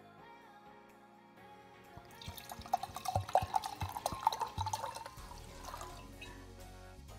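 Liquid poured into a glass tumbler: splashing with irregular glugs from about two seconds in, lasting about three seconds and then fading, over background music.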